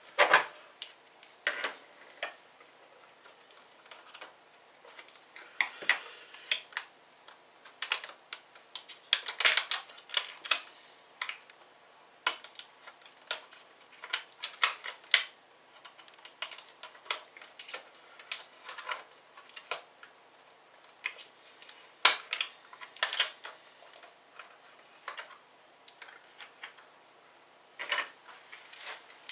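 Irregular clicks, taps and light clatter of a laptop's plastic and metal parts being handled and worked apart during disassembly, with a few louder knocks among them.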